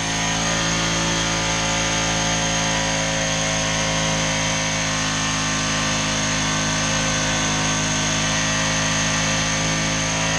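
2003 SYM Wolf 125cc motorcycle engine running steadily at constant speed with all its engine oil drained, being run on purpose to see how long it lasts before it fails.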